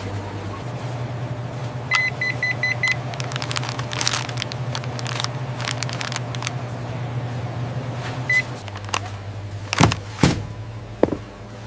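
A steady electric hum with a quick run of four electronic beeps about two seconds in and a single beep shortly before the hum stops, followed by several sharp clicks and knocks.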